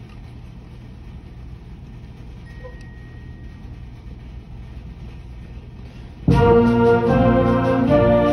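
Low steady rumble of room noise, then about six seconds in a band comes in suddenly and loudly with sustained chords.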